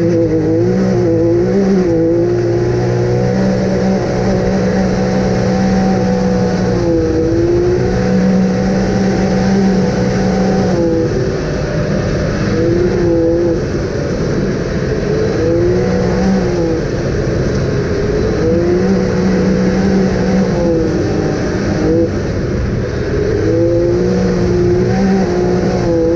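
Off-road vehicle engine running under load, its revs rising and falling again and again as it is driven.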